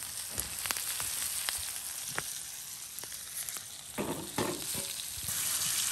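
Steaks frying in butter in a cast-iron skillet over a campfire: a steady sizzle with scattered sharp pops of spattering fat, the sizzle growing louder near the end.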